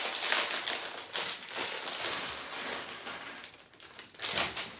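A clear plastic bag of Lego bricks being rummaged through, crinkling and rustling in a fast stream of small crackles, with a louder crinkle near the end.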